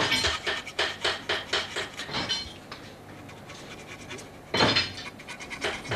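Small hand tools clicking and scraping against brass model-train parts at a workbench. A quick run of light metallic taps comes first, then a quieter stretch, then a louder clatter about four and a half seconds in, followed by a few more taps.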